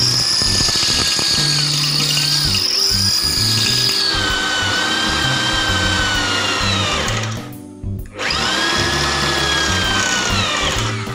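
Mailtank impact drill running hard as an ordinary 8 mm bit grinds into 5 mm steel channel. Its high whine drops to a lower pitch about four seconds in, stops briefly about seven and a half seconds in, then starts again and slows near the end. The bit is overheating and losing to the steel. Lounge background music plays throughout.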